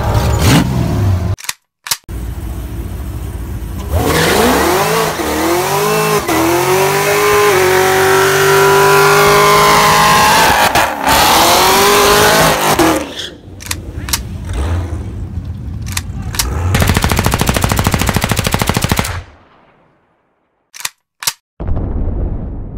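Car burnout: an engine revving hard with tires squealing in wavering squeals, then a rapid, chattering engine note. It cuts off suddenly near the end, followed by a few clicks and a short fading whoosh.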